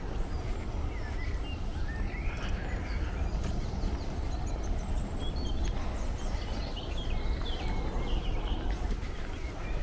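Small birds chirping here and there in the background over a steady low rumble of wind on the microphone.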